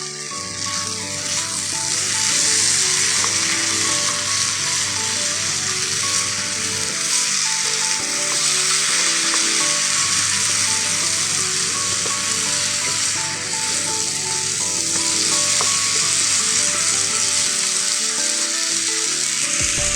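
Cooked tapioca and onions sizzling in hot oil in a pan as they are stirred together, a steady frying hiss, over soft background music.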